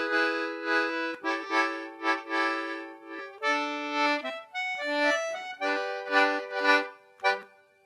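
Instrumental closing bars of a 1917 acoustic song recording, restored and denoised. Held chords give way to moving melody notes, and the piece ends on a few short detached chords, the last about 7 seconds in.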